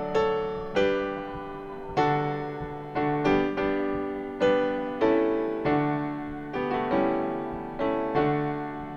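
Piano playing slow chords, each struck sharply and left to ring and fade before the next, about one a second.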